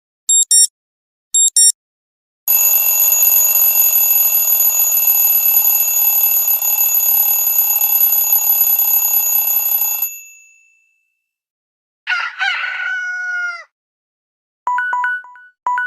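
Samsung Galaxy S2 alarm and notification tones played one after another: two short high beeps, then a long steady ringing like an alarm bell for about seven and a half seconds, then a rooster-crow sound that falls in pitch at its end, and a few short beeps near the end.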